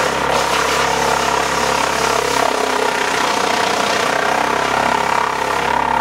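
Tractor engine and Farmi CH260 HFC disc wood chipper running steadily under load while sawmill slabs are fed in, a continuous machine drone with a steady high hum over it.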